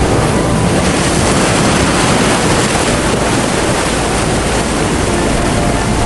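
Steady, loud rush of heavy rain and floodwater spilling over flooded rice terraces, a continuous hiss and roar with no breaks.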